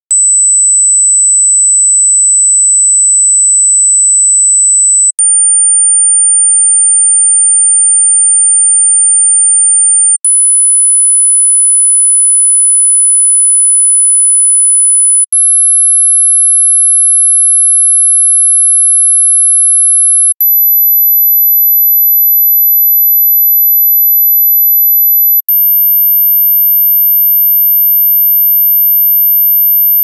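Electronically generated pure sine tones at very high pitch, each held steady for about five seconds, then stepping up to a higher pitch, six rising steps in all, with a brief break and faint click between each.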